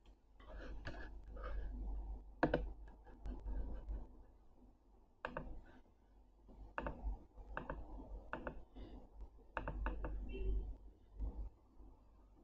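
Faint, irregular computer clicks as numbers are entered into an on-screen calculator, over a low steady hum.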